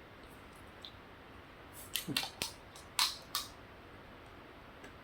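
A few sharp, crackly crunches about two to three and a half seconds in, the loudest near the three-second mark: a crunchy seeded snack being bitten.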